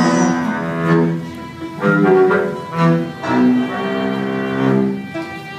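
Instrumental passage of a cabaret song with no singing: a melody of held, sustained notes that change pitch every half second or so.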